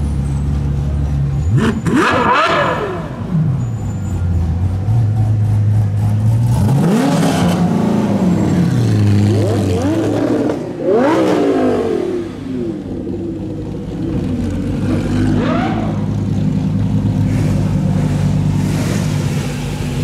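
High-performance car engine revved about four times, each rev a sharp climb and fall in pitch, settling back to a steady idle in between.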